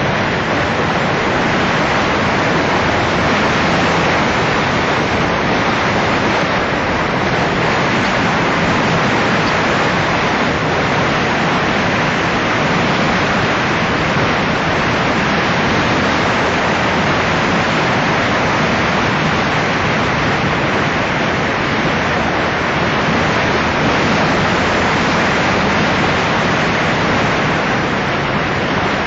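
Steady wind rush over the microphone of a motorcycle riding at road speed, with a faint engine hum beneath it.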